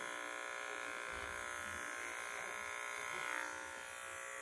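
Electric pet clippers buzzing steadily as they trim a very young poodle puppy's fur, briefly louder a little past three seconds in.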